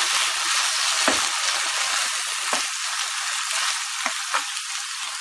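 Soya chunks, capsicum and ground tomato sizzling in a nonstick frying pan while a spatula stirs them, scraping and tapping against the pan. The stirring strokes thin out after about two and a half seconds, leaving mostly the steady sizzle with occasional taps.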